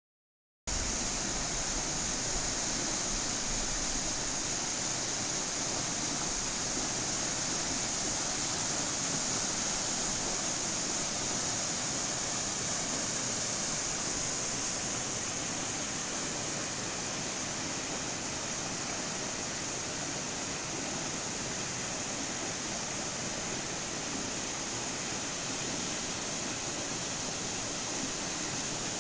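Steady rushing of river water at a small concrete intake dam, an even hiss with a strong high edge. It starts just under a second in.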